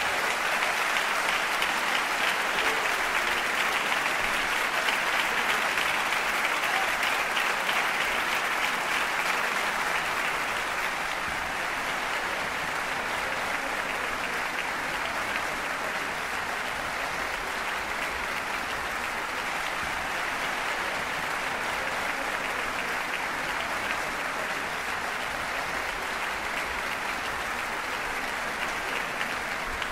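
Sustained applause from an audience, a dense, even clatter of many hands clapping that follows the end of a wind-band piece and eases slightly after about ten seconds.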